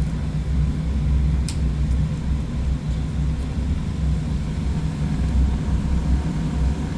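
Steady low mechanical hum, with a single sharp click about a second and a half in.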